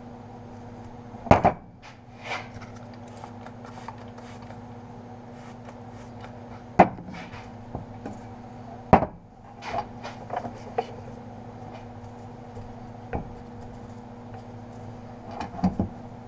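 Scattered sharp knocks and clunks of the 1980 Yamaha XS400's steel exhaust header pipes shifting and bumping on a wooden tabletop as exhaust wrap is wound around them by hand, the loudest about a second in, with a steady low hum underneath.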